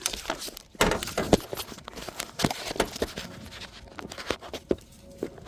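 Hand-working noises on a car's coolant hose: irregular clicks, knocks and rustles as the hose is handled and pushed into place, loudest about a second in.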